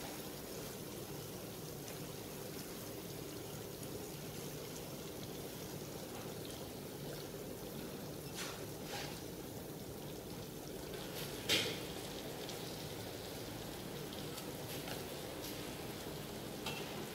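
Fish-sauce glaze sizzling steadily in a frying pan with a fine crackle as the chicken wings finish cooking, with a few light clicks, the clearest about eleven seconds in.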